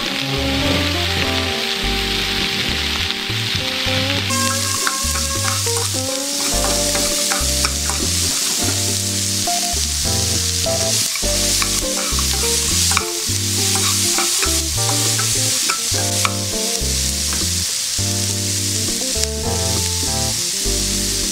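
Vegetables sizzling in a hot wok while they are stirred and tossed with tongs; the sizzle grows louder about four seconds in. Background music with a steady bass line plays underneath.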